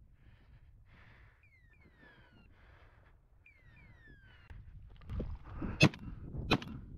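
Footsteps crunching over frozen, stony ground about twice a second, with two pairs of short falling whistles. Near the end there is louder rustling and two sharp, loud cracks about half a second apart.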